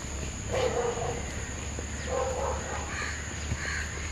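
Two short, harsh animal calls about a second and a half apart, followed by fainter, higher calls near the end.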